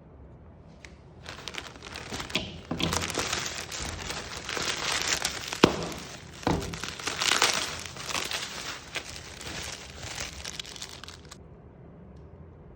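Watch packaging being unwrapped and handled: a dense rustle of wrapping with several sharp clicks and knocks among it. The loudest click comes a little past halfway, and the rustling stops about a second and a half before the end.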